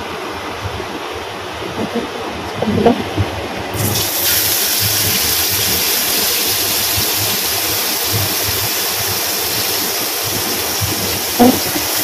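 Kitchen range hood fan running steadily; a few light knocks, then about four seconds in a white fish steak goes into the hot oil in the wok and starts sizzling loudly, a steady hiss that keeps on, with another knock near the end as a second piece is laid in.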